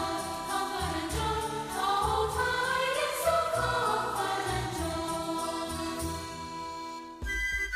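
Background music with choir-like singing and a steady beat; about seven seconds in it cuts to a different piece.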